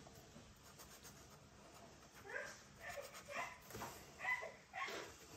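Faint series of about six short, high, whining calls from a small animal, starting about two seconds in, each gliding in pitch.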